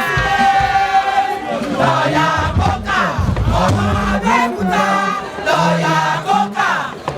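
Many voices singing and chanting together over music, with deep bass notes in the middle.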